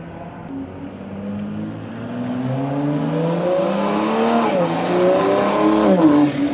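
Toyota Supra's turbocharged straight-six accelerating hard through the exhaust. The engine note climbs, drops sharply at a gear change midway, climbs again and drops at a second upshift near the end.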